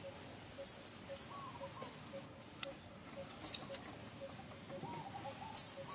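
Baby macaque shrieking in short, very high-pitched squeals, in three bouts: about a second in, around the middle, and near the end. These are distress cries while its mother grips and handles it roughly.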